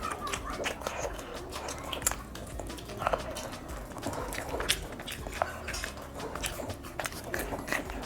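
Close-up eating sounds: biting and chewing food, with irregular wet mouth clicks and small crunches.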